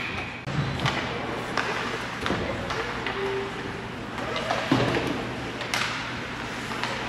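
Ice hockey game play in an arena: irregular sharp clacks and knocks of sticks, puck and boards over a steady low hum.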